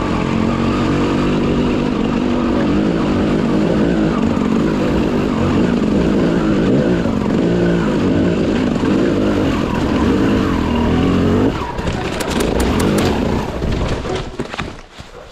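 KTM 250 EXC two-stroke enduro bike engine running under riding load, its revs rising and falling. About twelve seconds in, the engine note drops and a few sharp knocks follow as the bike goes down, then the engine sound fades away near the end.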